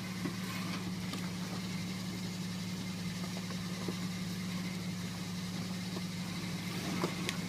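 Off-road vehicle's engine idling steadily, with a light click near the end.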